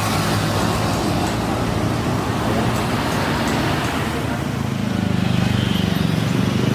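Steady engine noise, a continuous rumble with a low hum.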